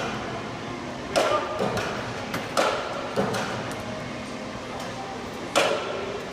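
Metallic clanks, five over several seconds, each with a short ringing tail, as a Ford Transit van is tipped onto its side on a steel roll-over frame. A steady low hum runs underneath.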